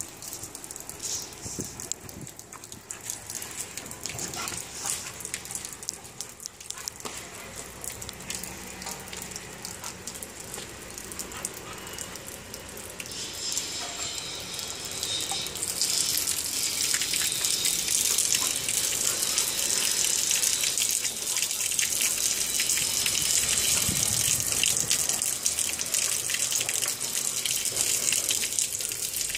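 Water running steadily, a hiss that swells about halfway through and then stays loud and even.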